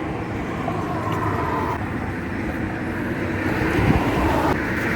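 Steady rumble of vehicle traffic, swelling slightly in the second half.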